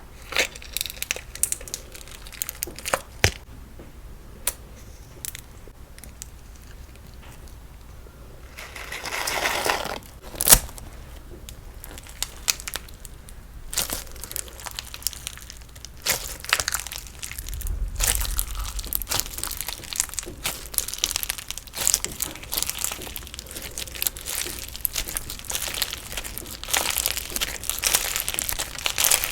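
Crunchy slime being pressed and worked by hand, giving off crackling and popping clicks. The clicks are sparse at first, with one sharp snap about ten seconds in, and grow into denser, steadier crackling for the second half.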